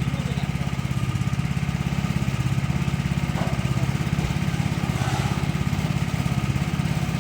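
Small engine running steadily at a constant speed, with a fast, even firing beat.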